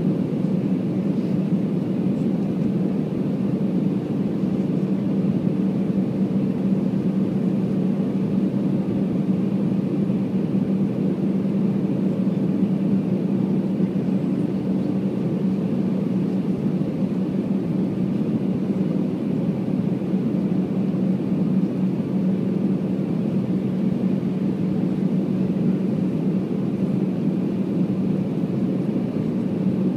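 Steady cabin drone of an Airbus A319-114 airliner on approach, heard from a window seat over the wing: the CFM56 engines and the airflow make an even rushing noise with a constant low hum that does not change.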